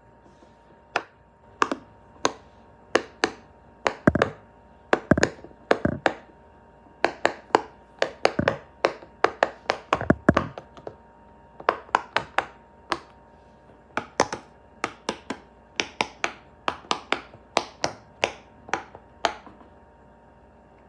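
A long run of sharp pops at an uneven pace, about two or three a second and sometimes in quick clusters, some with a short falling tail. They stop about a second before the end.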